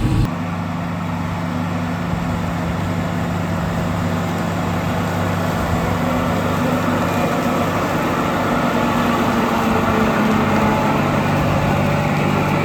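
John Deere 6600 combine running steadily with its engine drone and machinery noise, changing abruptly just after the start.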